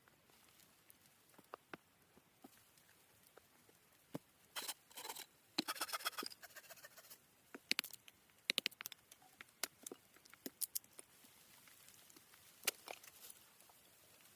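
Light handling noises: scattered clicks and taps with rustling, thickest in a crackly stretch a little past the middle.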